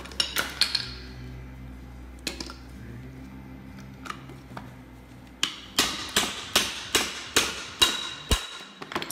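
Claw hammer knocking the old inner grease seal out of a truck's front wheel hub: sharp metal-on-metal strikes with a short ring, a few scattered ones at first, then a quick run of about eight about half a second apart near the end.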